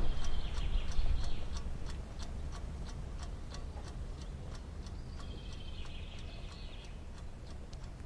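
Clock ticking steadily, a sharp even tick roughly two or three times a second.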